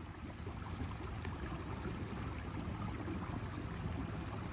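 Steady rush and gurgle of water along the hull of a fishing kayak under way.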